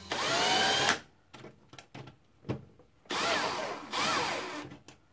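Milwaukee Fuel cordless drill driving a screw at the cable connector on the breaker box. It makes two runs: a one-second burst at the start with the motor whine rising, then a longer run about three seconds in, its pitch rising and falling as the trigger is worked.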